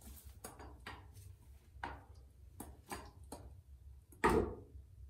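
A 3/8-inch paint roller rolling bonding primer over ceramic shower-floor tile, making a run of light, irregular clicks and ticks, with one louder knock about four seconds in.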